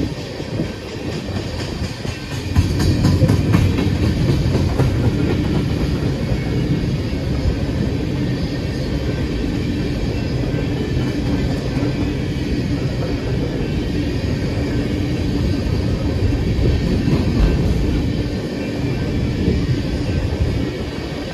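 Steel-wheeled coal hopper cars of a freight train rolling past: a steady rumble of wheels on rail with some clatter, growing louder about two and a half seconds in.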